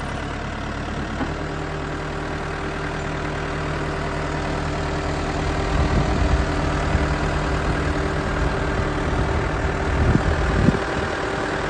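New Holland B75B backhoe loader's turbo diesel engine idling steadily, with a few heavier low surges in the second half.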